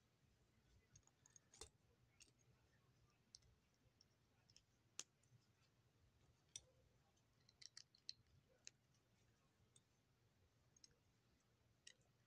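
Plastic Lego bricks being handled and pressed together: sparse faint clicks, the sharpest about five seconds in and a few close together around eight seconds.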